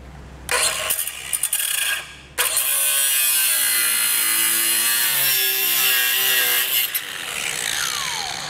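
Cutoff wheel cutting through a car's metal frame rail: a short cut, a brief break, then a longer steady cut of about four seconds. Near the end the wheel comes off the metal and spins down with a falling whine.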